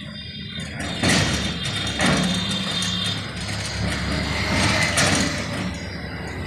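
Heavy diesel engine idling steadily, with three louder rushes of noise about one, two and five seconds in.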